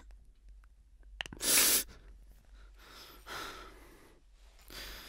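A man crying: a few short, breathy sobs, the loudest about a second and a half in.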